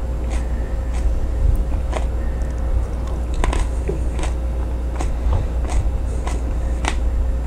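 A person chewing a raw Jimmy Nardello sweet pepper: irregular crisp crunches, about one or two a second, over a steady low hum.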